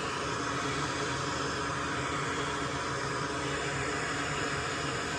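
Steady hum and hiss of a running fan, even throughout with no clicks or knocks.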